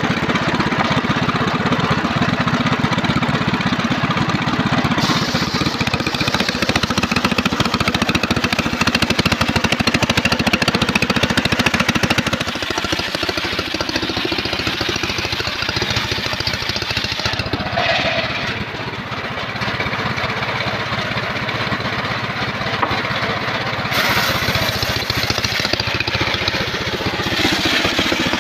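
Homemade circular sawbench running, its motor droning steadily while the large blade cuts lengthwise through a mahogany log. The tone and loudness shift suddenly several times.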